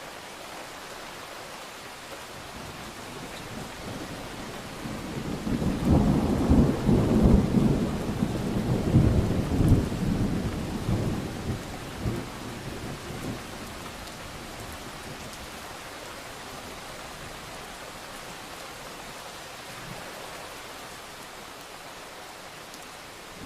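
Steady rain with a peal of thunder: a deep rumble swells about four seconds in, is loudest for several seconds, then rolls away, leaving the rain.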